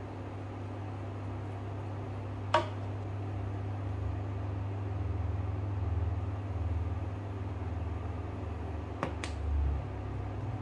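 Steady low hum of the electric cooktop under the soup pot. A sharp click about two and a half seconds in and two quick clicks near the end come from the spice shakers being handled.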